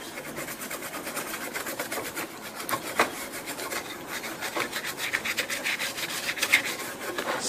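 Toothbrush scrubbing a laptop motherboard in quick, even back-and-forth strokes, the bristles rasping over the board.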